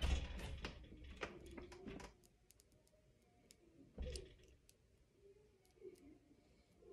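Disposable lighter burning with a hiss that stops about two seconds in. It is struck again about four seconds in with a sudden click and rush of gas, and faint handling clicks follow.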